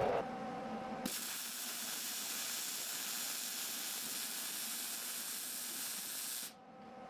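A steady, even hiss, like a spray or escaping air, starting abruptly about a second in and cutting off abruptly about five seconds later.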